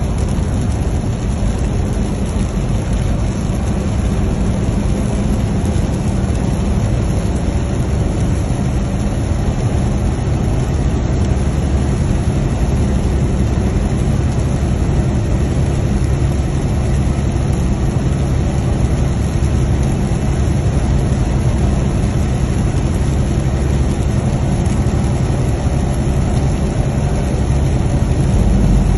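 Steady low engine drone and road noise inside a vehicle's cab while it drives along a wet highway.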